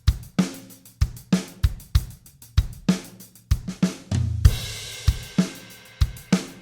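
Music with a drum-kit beat of kick, snare and hi-hat, with a cymbal crash about four and a half seconds in.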